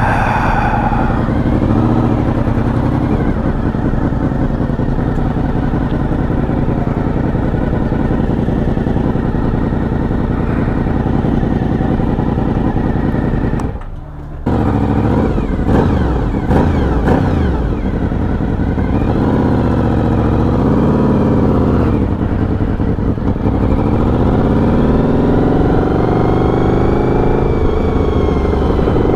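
Honda VFR750 sport-tourer's V4 engine running steadily at low revs, then pulling away, its pitch rising and falling several times as it accelerates through the gears.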